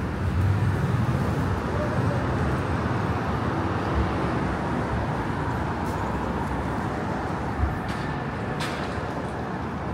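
Street traffic noise: a steady rumble of passing vehicles, with two short sharp knocks in the second half.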